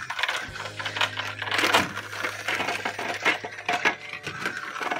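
Battery-powered toy fire truck crawling over plastic track pieces: a small electric motor humming steadily under a rapid, busy clatter of its plastic wheels against the track.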